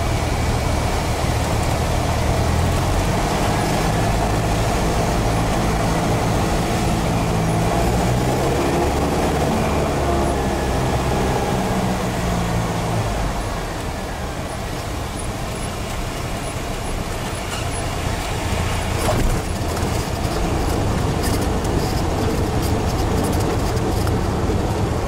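Light single-engine airplane's engine and propeller droning inside the cabin, with wind noise, on a landing approach. About halfway through the engine eases off and gets quieter as power comes back. A brief thump follows a few seconds later as the wheels touch down, then comes the noise of rolling on the runway.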